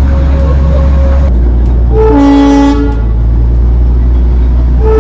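The Darjeeling toy train sounding its whistle in two short, multi-toned blasts about three seconds apart, over the steady low rumble of the moving train.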